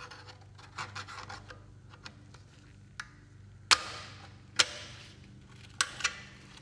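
Sharp metallic clicks and knocks, with short scraping between them, from the thin sheet-metal halves and wire mesh screen of a pried-open automatic-transmission filter being worked apart by hand. The loudest knock comes a little past halfway.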